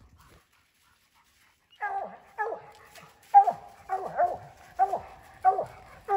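Coonhound barking at the tree, a steady string of short barks about one and a half a second, starting about two seconds in: the sound of a dog holding a treed raccoon.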